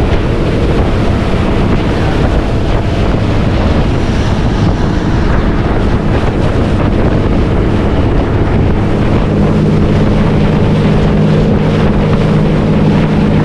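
Small motorboat running under engine, with wind buffeting the microphone and water rushing past the hull. The engine's steady low drone grows stronger about nine seconds in.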